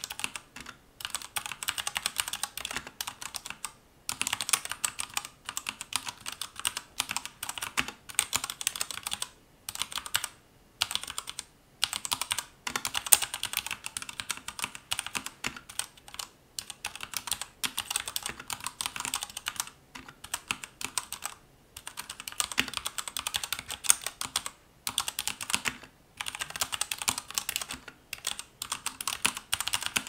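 Typing on a Royal Kludge RK84 mechanical keyboard with RK Red linear switches: rapid keystrokes in runs of a few seconds, separated by brief pauses.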